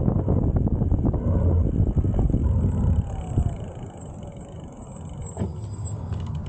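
Low wind rumble on the microphone from riding an electric bike, dropping away about three seconds in.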